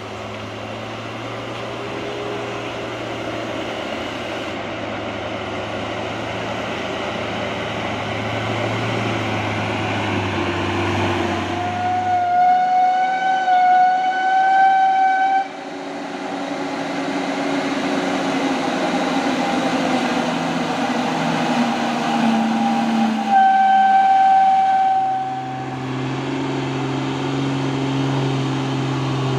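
Heavy truck engine droning steadily under load on a climb. Twice, about twelve seconds in for some three seconds and again near 23 seconds for about two, a long high-pitched tone with overtones sounds over it. The low hum drops away during the middle stretch and returns near the end.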